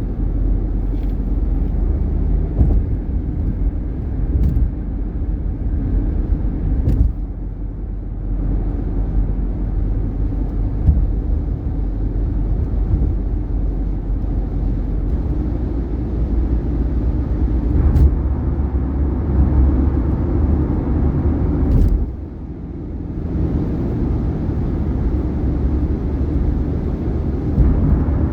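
Steady tyre and road noise of a 2018 Subaru Outback at highway speed, broken every few seconds by sharp thumps as the tyres hit bridge expansion joints. The road noise dips briefly after one of the later thumps.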